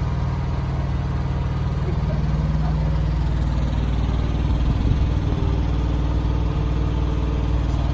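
Harley-Davidson Milwaukee-Eight 114 V-twin engine of a 2020 FXDR idling steadily through its 2-into-1 exhaust.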